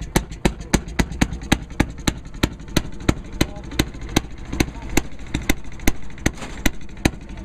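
Steady, evenly spaced sharp clicking, about three clicks a second, of the kind a running model train's wheels make passing over rail joints, over a low murmur of voices.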